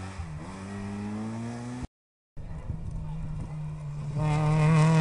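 Rally cars' petrol engines accelerating past. First an Opel Astra rises in pitch through the revs with a brief dip at a gearchange. After a half-second break in the sound about two seconds in, a Renault Clio's engine runs at steady high revs and grows loudest near the end as it passes close by.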